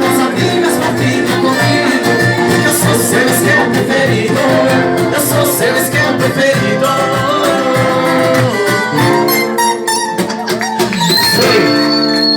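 Live bar-style music: plucked guitar with singing, ending on long held notes.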